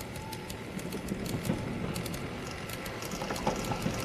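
Railway train noise: a steady low rumble with many irregular metallic clicks and rattles.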